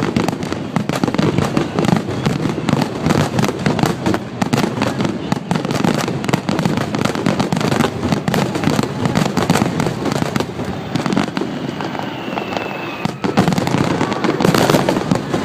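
Aerial fireworks bursting in a rapid, continuous barrage, many cracks and reports a second, with one louder burst near the end.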